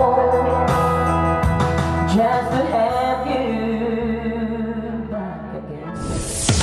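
A singer singing a song over backing music; the song winds down and different, brighter music cuts in about six seconds in.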